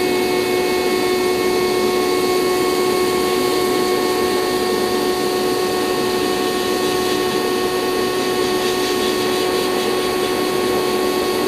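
Glass-bead blast cabinet in use, blasting a steel steering column: a steady hiss of compressed air and beads over a steady motor hum.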